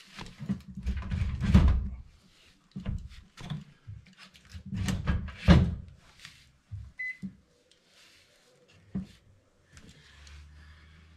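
A ZLINE drawer microwave's metal casing being pushed and shifted in its cabinet opening, with scraping and knocking in the first two seconds and again around five seconds in. A short beep about seven seconds in, and a faint low hum near the end.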